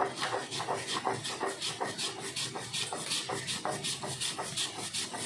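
Stone grinding roller (nora) rubbed back and forth over a stone slab (shil), grinding poppy seeds and chillies into a paste: a steady run of scraping strokes, about three a second.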